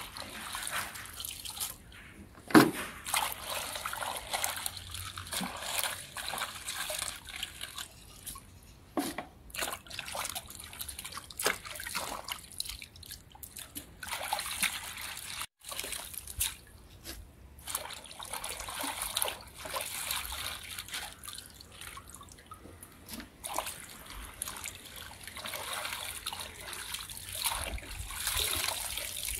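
Hands sloshing and lifting cabbage leaves in a wheelbarrow of water, water trickling and dripping off them back into the barrow in irregular splashes. One sharper knock about two and a half seconds in.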